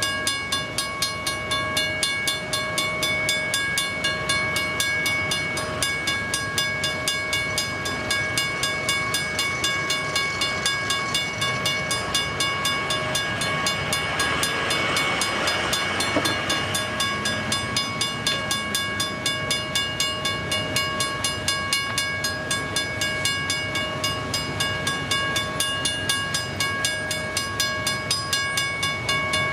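Western-Cullen-Hayes first-generation crossing bell ringing with steady, regular strikes as an Amtrak Vermonter passenger train rolls through the crossing. The train's wheel noise swells about halfway through.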